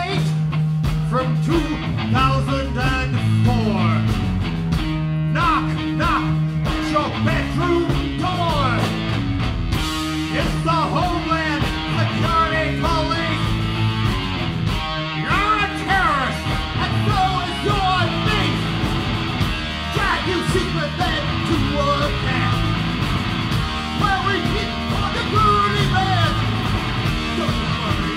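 Live punk rock band playing loud: distorted electric guitar and bass over drums, with a singer shouting and singing lyrics into a microphone.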